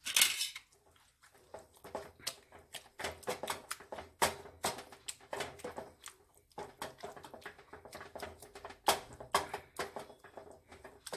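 Vegetable masher repeatedly pressing boiled vegetables and tomatoes in a pan, making an irregular run of soft squelches and knocks against the pan.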